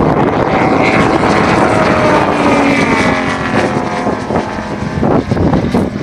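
T-28 Trojan propeller plane flying past, its engine note falling in pitch through the middle as it goes by.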